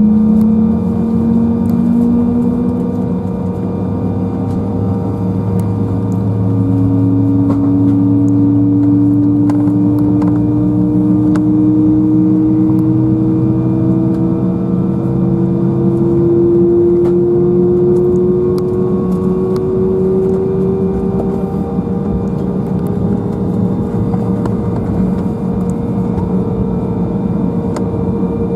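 Embraer 175 jet engines heard inside the cabin, a steady hum and whine with a tone that rises slowly in pitch over about twenty seconds before fading.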